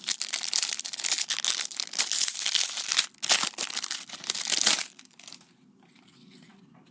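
Foil wrapper of a trading-card pack crinkling as it is torn open and crumpled by hand, for about five seconds before it stops.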